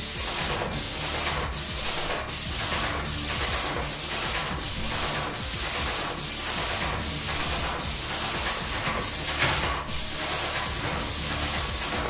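Werku airless paint sprayer gun atomising white paint onto a ceiling: a loud, steady hiss broken by brief gaps about every three-quarters of a second as the trigger is pressed and released stroke after stroke.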